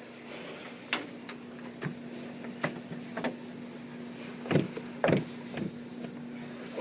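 Light clicks and knocks of door latch and strike plate hardware being worked by hand, about half a dozen irregular taps, the two loudest near the end. A steady low hum runs underneath.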